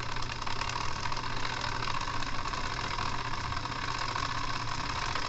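Small electric motor of a 3D-printed mini Thunderbolt siren's rotator switching on and running steadily, turning the siren head through a belt and pulley: a steady whir over a low hum. The freshly repaired rotator is working.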